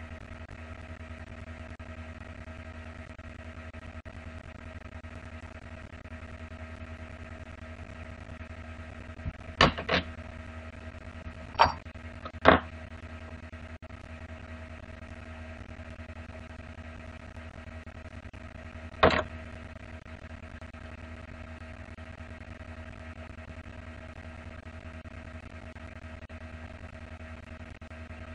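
A steady hum made of several held tones. Sharp clicks stand out over it: four close together about a third of the way in and one more about two-thirds of the way through.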